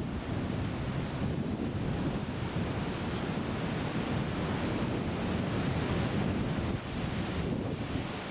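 Wind buffeting the microphone: a steady, rumbling rush of noise with no break.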